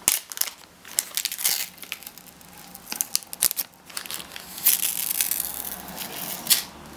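Clear plastic protective film being peeled off a white plastic speaker cabinet and crinkled in the hands: irregular crackling and rustling, louder in bursts.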